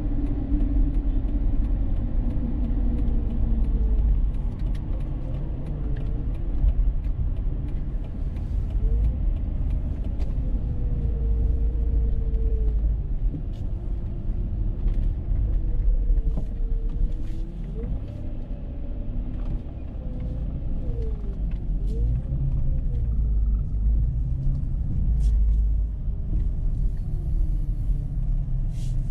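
A Dodge Charger driving on the road: a steady low rumble of road and engine noise, with a tone that glides up and down as the car's speed changes. There are scattered faint ticks.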